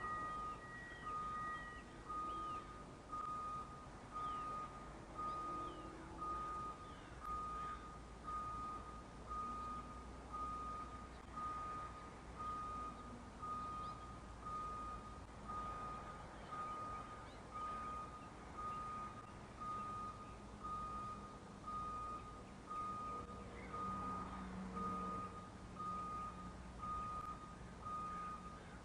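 School bus backup alarms beeping, a single steady tone repeating about once a second. A second, higher-pitched beeper overlaps it for the first two seconds.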